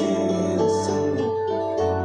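A live band playing an instrumental passage on keyboard and guitar: held, gently changing notes over a steady bass line.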